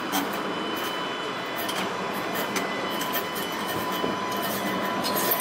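Alstom Citadis 305 steel-wheeled tram passing close by on its rails: a steady running noise with a thin, steady high whine and a few short clicks.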